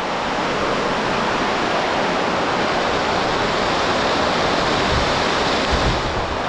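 Heavy rain hammering down in a steady, dense hiss.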